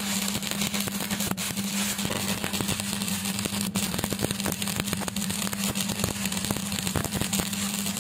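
Stick welding arc crackling and sizzling without a break as the electrode burns along the steel, over a steady low hum.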